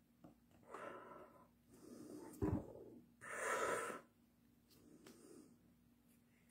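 A man breathing hard through nose and mouth, in several noisy puffs and snorts, the longest about three seconds in. There is a dull thump about two and a half seconds in, over a faint steady hum.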